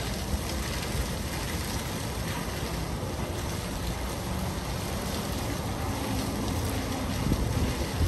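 Fountain jets splashing steadily into the pool, with a low rumble that swells near the end.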